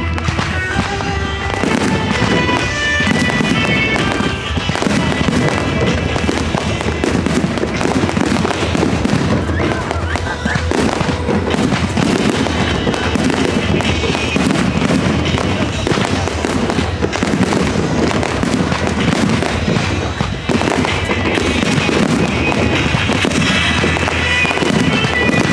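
Fireworks bursting in quick succession, a dense continuous crackle and bang, over loud background music.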